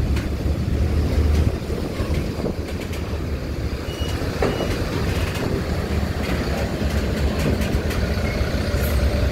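A coach's engine running at low revs as it rolls slowly over a ferry's steel loading ramp: a deep, steady rumble that eases about a second and a half in, with a few faint knocks.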